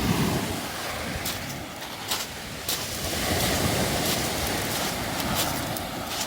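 Surf washing over a beach of smooth round pebbles, with scattered sharp pebble clicks and a swelling wash near the middle, and wind on the microphone.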